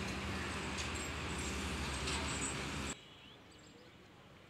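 An engine running steadily with a low hum, cut off abruptly about three seconds in. A faint outdoor background with a single bird chirp remains after it.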